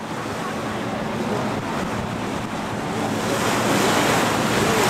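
Wind buffeting the microphone and water rushing past a moving boat, with a faint steady hum. The rushing gets louder about three seconds in.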